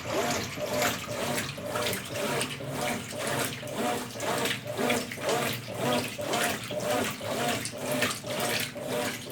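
Consul Facilite 10 kg top-loading washing machine in its wash cycle, churning a load of sheets and towels in water with an even swishing rhythm of about two strokes a second.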